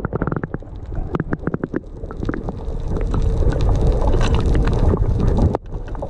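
Water rushing and gurgling against a camera held underwater, heard muffled and deep, with a run of sharp knocks in the first two seconds and a low rumble building up after.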